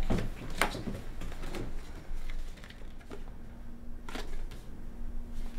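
A paper postcard being handled, with soft rustling and a few light clicks and flicks of the card. A faint steady low hum comes in about halfway through.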